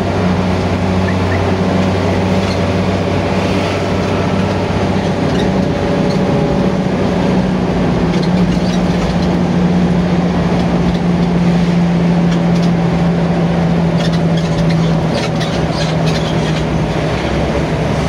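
Intercity bus's diesel engine and exhaust running under way, heard from inside the passenger cabin as a steady drone over road noise. The drone drops slightly in pitch near the end as the bus eases off.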